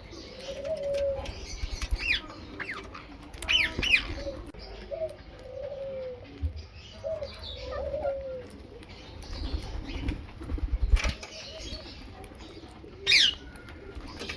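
Rose-ringed parakeet calling: three short, sharp screeches that drop in pitch, about two seconds in, about four seconds in and near the end. Between them come softer, low warbling notes and some low rustling thumps.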